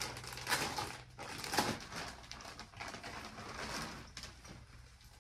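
Clear plastic garment bag crinkling and rustling as it is opened and the garment pulled out, with louder crackles about half a second and a second and a half in.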